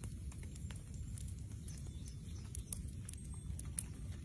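Hot charcoal embers crackling, with scattered small irregular pops over a low steady rumble, as a marinated chicken cooks over them.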